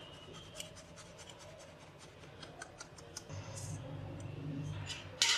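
Flour, cocoa powder and raising agents being sifted through a sieve: a run of light scratching and ticking as the sieve is shaken and tapped, with one louder scratch just before the end.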